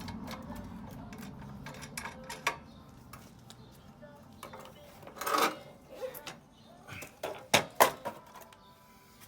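A low mechanical whir that fades out over the first few seconds, then scattered metallic clinks and knocks of parts and hand tools being handled on the scooter, with two sharp knocks close together late on.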